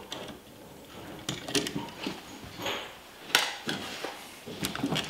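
Scattered small clicks and rustling from electrical wires and a crimped ground connector being handled in a wall box, with one sharper click about three seconds in.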